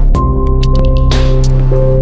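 Background music: sustained chords with notes changing over a steady beat of light percussion.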